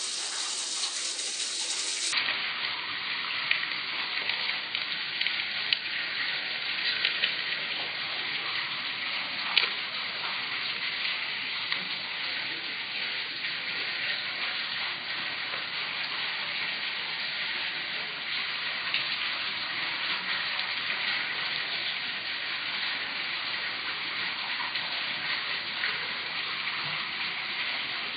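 Steady rushing, hissing water of a whirlpool vortex swirling down a drain hole, with now and then a brief tick.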